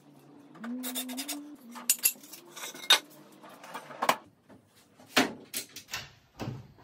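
A wooden crib's bottom drawer running on metal slides and the crib's hardware being handled: a run of sharp metallic clicks and clinks, with a low hum in the first two seconds.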